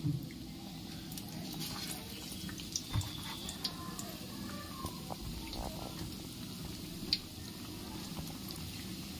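Besan-battered potato patties deep-frying in hot oil in a steel kadai: a steady sizzle with a few sharp pops.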